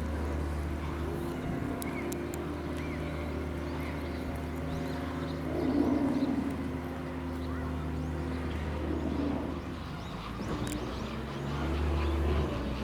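A vehicle engine running steadily, a low hum that eases off briefly near the end and then picks up again, with a louder patch of sound about halfway through.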